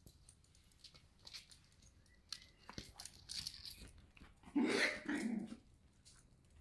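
Shiba Inu puppy giving a short two-part bark in play, about four and a half seconds in. Light clicks and taps come before it.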